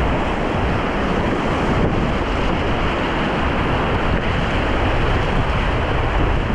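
Whitewater rapids rushing steadily and loudly, with wind buffeting the microphone.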